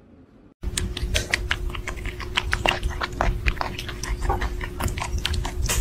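Nursing kittens suckling at their mother: a rapid, irregular run of small wet clicks and smacks over a low rumble, starting about half a second in.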